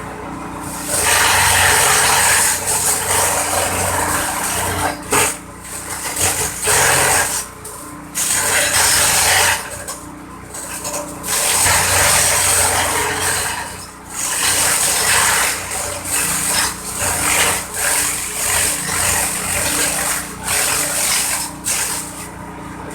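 Simple engine-driven corn-stalk chopper running with a steady engine drone, while stalks are fed in: loud bursts of shredding noise start about a second in and come and go every few seconds.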